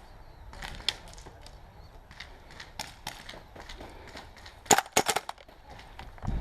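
Airsoft guns firing: scattered single pops, then a rapid string of five or six shots just before five seconds in.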